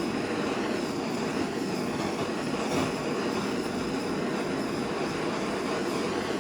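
Blowtorch flame burning with a steady rushing hiss, heating a welded steel rose to bring up heat colours on the steel.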